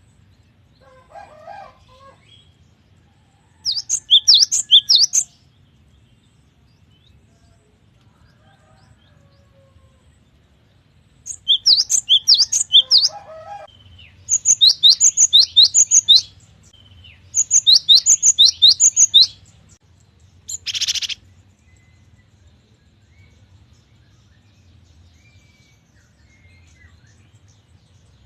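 Cinereous tit (gelatik batu) singing: four phrases of rapid, evenly repeated high whistled notes, each one to two seconds long, with pauses between them. A short noisy burst follows just after the last phrase.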